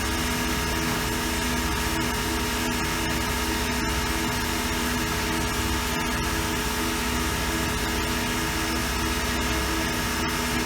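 CNC mill spindle driving an end mill through bores, a steady machining sound with several held tones. The end mill is lightly loaded and not being pushed.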